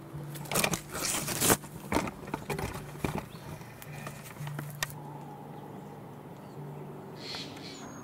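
Handling noise from a hand-held camera being moved: about four seconds of irregular rubbing, scraping and knocks, then it settles to a faint low hum.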